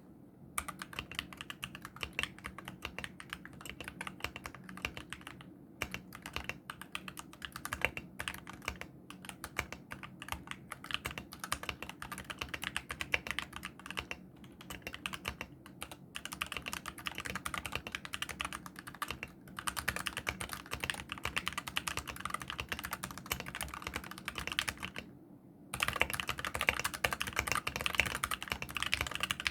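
Fast typing on a mechanical keyboard with dry, unlubricated Gateron optical brown switches whose tactile bumps have been removed, so they act as linear switches: a dense run of key clicks broken by brief pauses. After a short pause near the end the typing grows louder.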